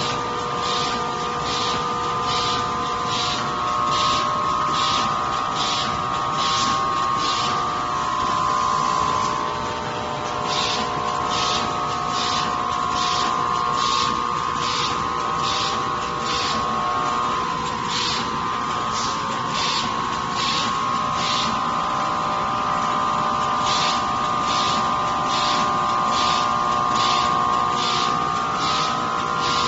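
Facial tissue converting machinery running: a steady motor whine with short hissing strokes repeating evenly about one and a half times a second, the strokes pausing briefly twice.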